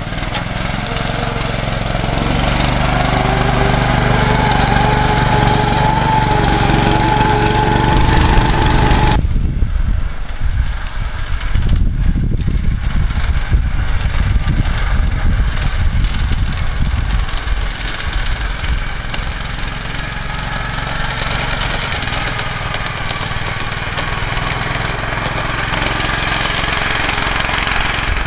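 Small 13 hp four-stroke single-cylinder engine of a prototype snowmobile running under way. Its pitch rises gradually over the first several seconds, then changes abruptly about nine seconds in to a rougher, uneven running before settling again.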